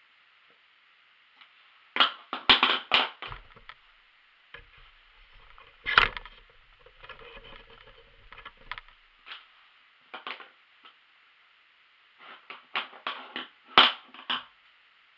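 Scissors snipping through stretch knit fabric in short runs of quick, crisp cuts, with a few knocks in between.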